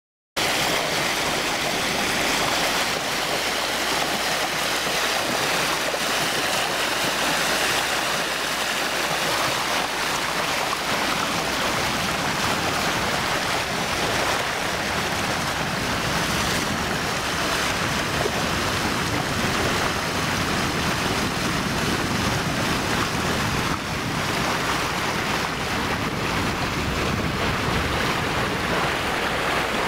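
Sailboat motoring on flat calm water: a steady rush of water along the hull and wind on the microphone, with the inboard engine's low, steady hum underneath.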